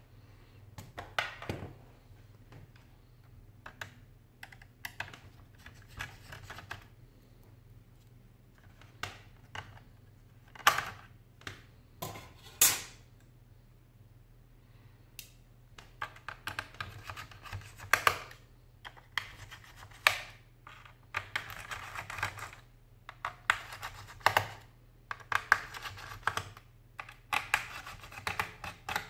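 Small clicks, taps and scraping of a screwdriver and fingers on the plastic and metal parts of an opened HP ProBook 4720s laptop, as the metal cover plate and then the fan and heatsink are worked loose. The sounds are scattered at first and become a busy run of clicking and rustling about halfway through.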